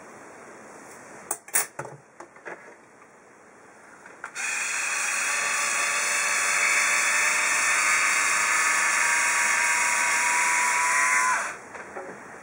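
A few light clicks and taps, then the motor of an Instyler rotating-barrel hot iron whirring steadily for about seven seconds as it turns the barrel through a section of hair, starting and stopping abruptly.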